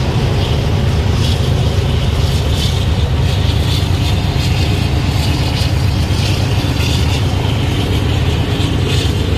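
Diesel-electric freight locomotives of a Union Pacific train, one of them a Kansas City Southern unit, passing close by under power: a steady low diesel rumble with irregular clicks from the wheels above it.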